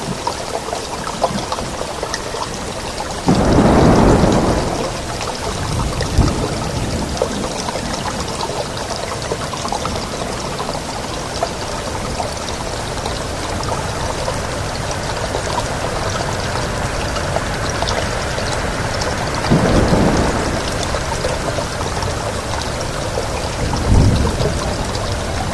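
Steady heavy rain with rolls of thunder: the loudest swells for about two seconds roughly three seconds in, and two shorter rumbles come near the end.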